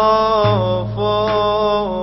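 Man singing the drawn-out Arabic folk 'ouf' (wal-ouf) refrain in long, wavering held notes, over instrumental backing with a steady low bass note and occasional sharp percussion hits.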